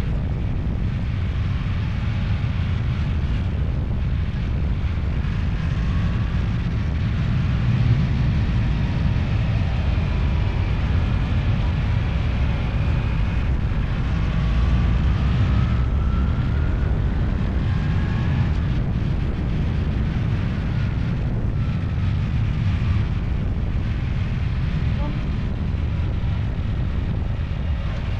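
Steady low rumble of a running vehicle, with wind noise on the microphone and faint rising engine tones around the middle.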